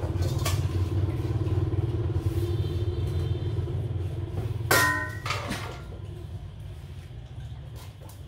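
Dogs eating dry kibble from stainless steel bowls, with faint scattered clicks. About halfway through, a steel bowl clanks once and rings briefly. A steady low hum runs underneath.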